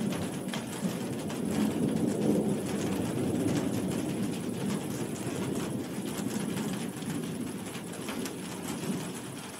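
Heavy rain falling steadily, with a low, rolling rumble of thunder that swells about two seconds in and slowly fades.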